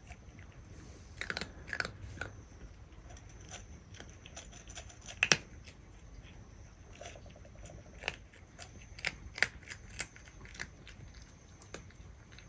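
A cat crunching dry kibble, with irregular crisp crunches as it chews; the loudest crunches come about five seconds in.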